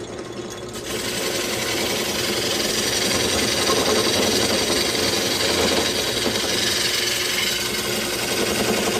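Drill press running steadily with a block of wood spinning in it. About a second in it gets louder as a rough, hissing cutting noise joins.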